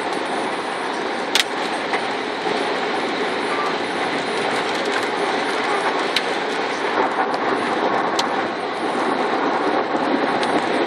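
Steady road and wind noise inside a car driving at highway speed in strong wind, with a few sharp ticks against the car.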